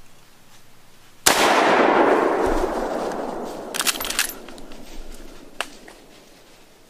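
A single hunting rifle shot about a second in, with a long echo that dies away over about three seconds, then a few sharp clicks.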